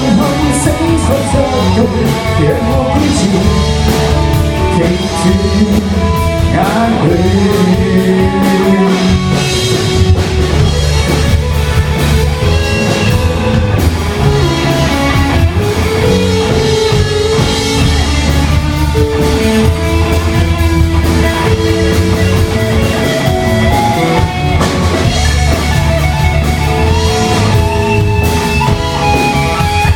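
A rock band playing live: a singer over guitar and a drum kit.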